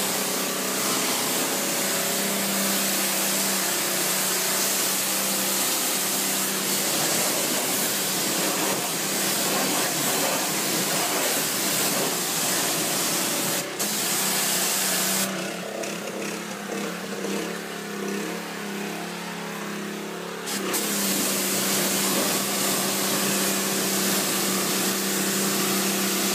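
Pressure washer jet spraying onto a car's bodywork and wheels: a steady hiss over a steady hum. The hiss drops away for about five seconds past the middle, then comes back.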